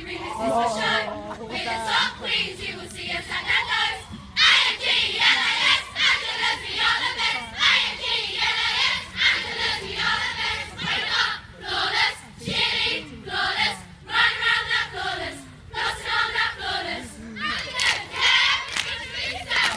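A cheerleading squad shouting a cheer in unison, in short rhythmic bursts of many voices with brief gaps between phrases.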